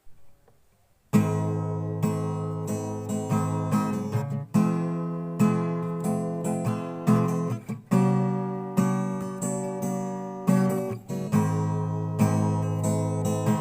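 Acoustic guitar strumming chords as an instrumental song intro, starting about a second in with no singing yet.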